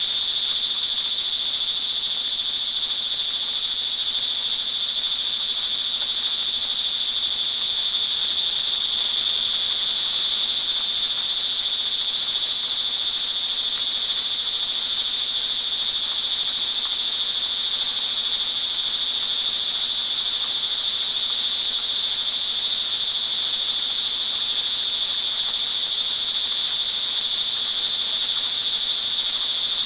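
A dense chorus of crickets trilling steadily and without pause.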